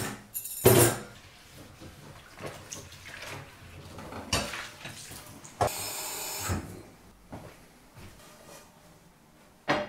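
Plates and crockery clattering in a stainless-steel kitchen sink, with a loud knock just under a second in and scattered clinks after it. A short run of tap water comes about six seconds in.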